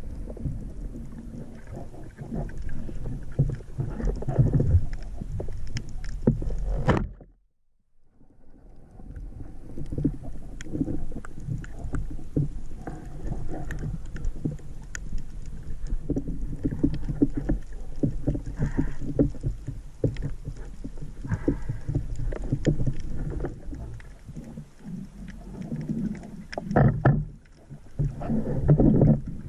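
Sea water washing and splashing around the camera during a spearfishing dive, with many small clicks and knocks. It drops out abruptly for about a second, about seven seconds in.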